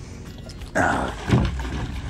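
A large hooked catfish thrashing and splashing at the surface as it is scooped into a landing net, with a loud splash about three-quarters of a second in and another just after; the angler takes it for a blue catfish.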